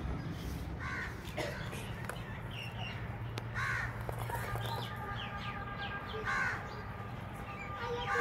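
Harsh, caw-like bird calls, about four of them a couple of seconds apart, with fainter high chirps between.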